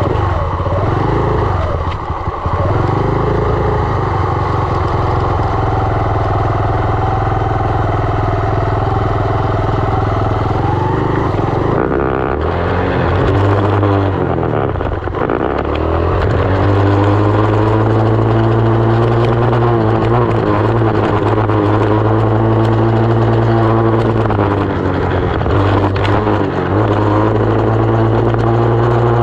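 2020 SSR 189 dirt bike's single-cylinder engine running steadily for long stretches, its pitch dropping and climbing back several times as the revs change.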